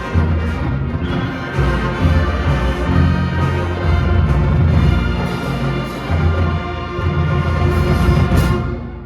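Marching band playing a parade tune: brass over bass notes and drums, stopping near the end.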